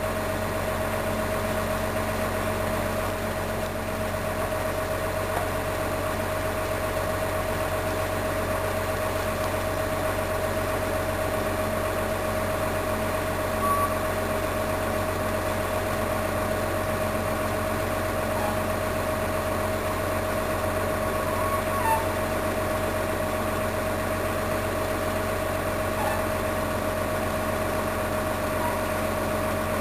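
Mobile crane's diesel engine running steadily with a constant hum while it lowers a steel cofferdam, with a couple of faint clicks around the middle.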